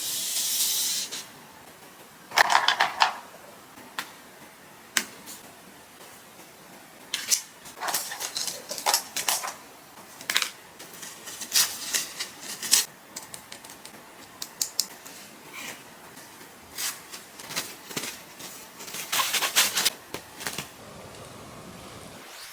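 Wet-wipe case being handled at close range: a series of irregular sharp clicks and taps with short rustling scrapes between them.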